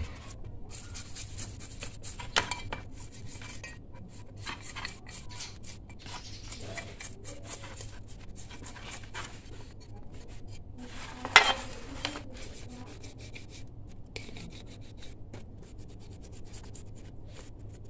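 Small brush scrubbing thinner-softened paint off a metal motorcycle engine cover: irregular scratchy rubbing strokes. A sharp knock stands out about eleven seconds in, with a smaller one near the start.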